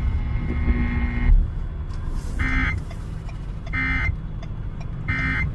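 Three short Emergency Alert System end-of-message data bursts, each a fraction of a second of buzzy digital screech, about a second and a half apart, marking the end of the alert. Before them a held tone stops about a second in, and a steady low rumble runs underneath.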